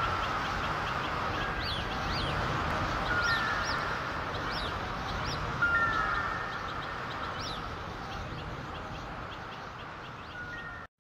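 Birds calling over a steady rushing wash like surf, a sea-and-birds ambience after a song ends. The calls come as many short chirps and brief falling whistles, and the whole sound slowly fades before cutting off at the end.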